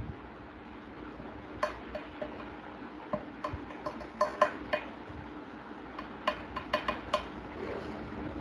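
About fifteen light, irregular clicks and clinks of small hard objects, clustered between about one and a half and seven seconds in, over a steady low hum.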